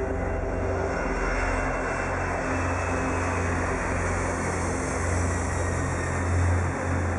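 Airliner engines running at takeoff power during a departure, a steady loud roar with a deep rumble underneath.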